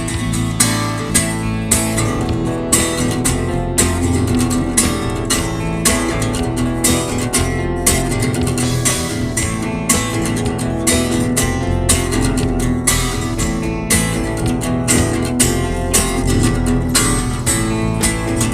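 Instrumental band music with strummed guitar over bass and a steady beat, with no vocals.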